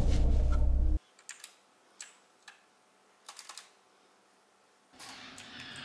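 A loud, low, droning sound cuts off suddenly about a second in. A handful of scattered computer keyboard key presses follow: single clicks, then a quick run of three. A faint hum with sliding tones comes in near the end.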